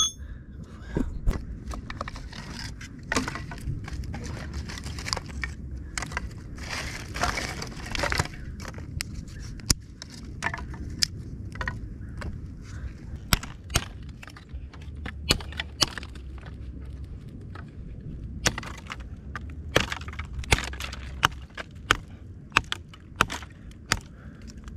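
Dry wood cracking and snapping in many sharp, irregular cracks as a small fire of dry sticks over coconut husk tinder is built up and catches.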